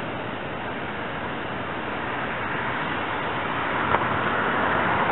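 Approaching SEPTA electric commuter train: a steady rush of running noise that grows gradually louder as it nears, with a single sharp click about four seconds in.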